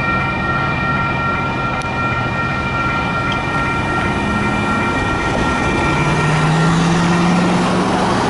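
Railroad grade crossing warning bell ringing as the crossing gates rise, stopping about seven seconds in, over a steady rumble of traffic and the departing train. A car drives across close by in the last couple of seconds.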